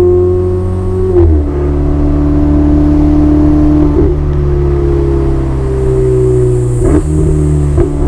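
Ferrari 488 Spider's twin-turbocharged V8 running under way, its note dropping suddenly in pitch about a second in as it shifts up a gear. There are brief sharp changes in the note again around four, seven and eight seconds in.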